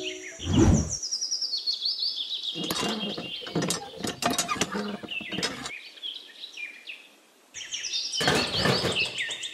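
Birds chirping in many short, quick, falling chirps, with a low whoosh about half a second in. Clusters of sharp clicks and knocks sound from about three to six seconds in and again near the end.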